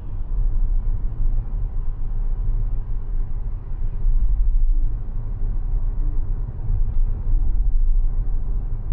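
Road and tyre rumble of a Mazda 6e electric sedan being driven, heard from inside the cabin: a steady low rumble that swells and eases a little.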